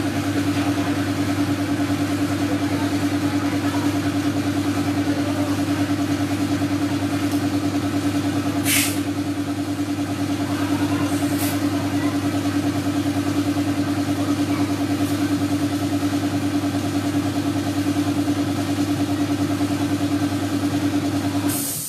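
Piston air compressor running with a steady hum and a fast, even pulsing, supplying the air hose used to inflate a walk-behind tractor's front tyre. A short hiss of air comes about nine seconds in, a fainter one a couple of seconds later, and the compressor stops just before the end.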